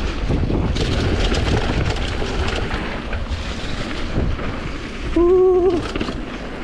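Wind rushing over an action camera's microphone and the rattle of a Commencal Supreme DH downhill mountain bike's tyres, chain and suspension on a dirt trail at speed. About five seconds in comes a short steady tone lasting about half a second.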